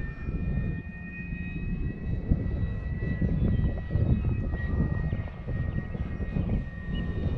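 Electric motor and propeller of a Flex Innovations RV8 G2 60E radio-controlled plane in flight overhead: a steady, thin high whine that drifts slightly in pitch as the plane moves. Gusting wind on the microphone makes a louder low rumble underneath.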